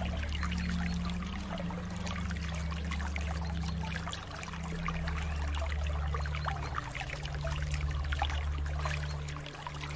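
Water trickling and splashing continuously, like a small stream, over a steady low hum.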